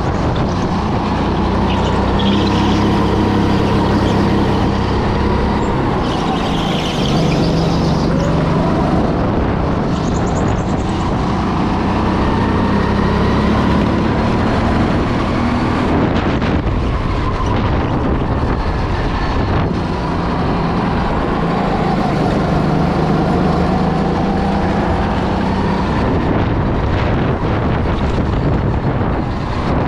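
Go-kart engine running at full throttle and easing off in turn, its pitch climbing and dropping every few seconds as the kart accelerates and slows through the corners of a lap.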